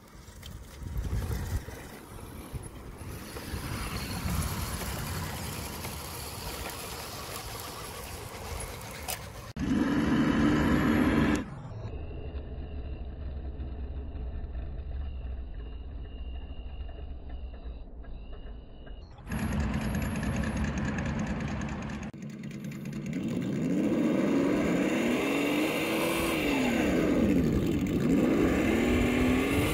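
Motor whine of radio-controlled crawler trucks driving in short, cut-together clips. Over the last several seconds the whine rises and falls in pitch again and again as the throttle is worked.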